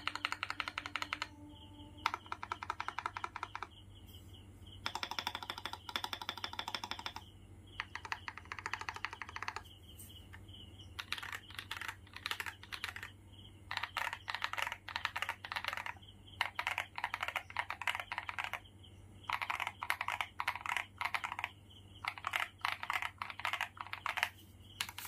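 Akko 5075S mechanical keyboard with Akko Lavender Purple tactile switches and GMK Bushido ABS keycaps being typed on, with a crunchy clacking. The typing comes in fast runs of keystrokes, each a second or two long, separated by short pauses.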